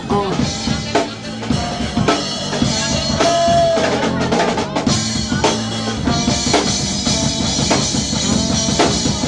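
Live funk band playing: a drum-kit groove with kick, snare and rimshots drives it, over cello, electric guitar and horn parts.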